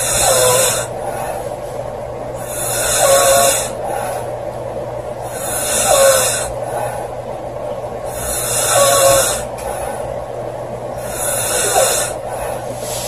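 A girl snoring loudly in a slow, regular rhythm: five snores about three seconds apart. Each is a breathy rasp with a brief pitched note in it.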